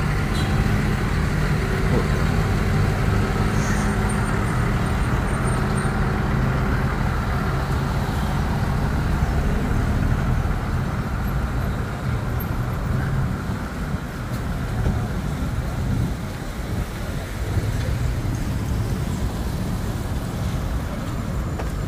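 Road traffic on a busy street: motor vehicles running past. A low engine hum holds through the first half and fades about halfway, leaving steady road noise.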